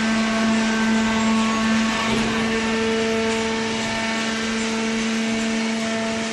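Hydraulic baler for waste cardboard running: a steady machine hum with a constant whine and no strokes or knocks.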